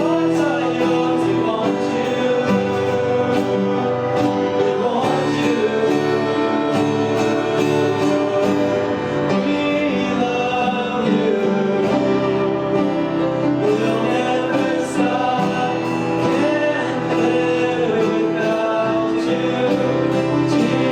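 Church worship music: voices singing a worship song over instrumental accompaniment, at a steady level.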